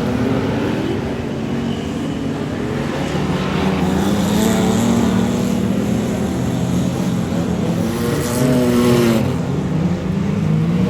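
Speedway race cars' engines running hard around the track, the pitch rising and falling as cars pass, with one car louder as it goes by near the end.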